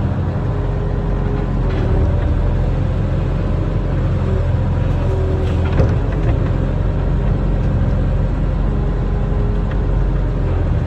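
Barge-mounted excavator's diesel engine running steadily under working load, with higher steady tones that come and go, and a short knock about six seconds in.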